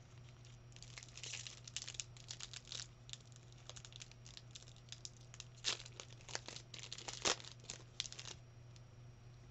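Foil Pokémon booster pack wrapper being torn open and crinkled by hand: a string of sharp crackling rips and rustles, loudest about two thirds of the way through.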